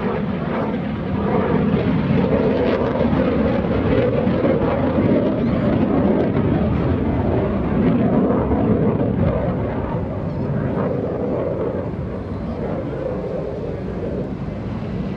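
An F-35C Lightning II's single F135 turbofan engine rumbling as the jet flies past. The deep, noisy sound swells to its loudest in the first half, then slowly fades.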